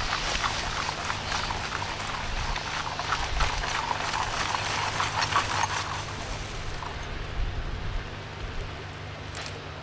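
Lumps of freshly made charcoal clattering and rattling as they are scooped out of an earth kiln with plastic crates and tipped into sacks. Dense clattering for about six seconds, then it thins to a soft hiss with a single clack near the end.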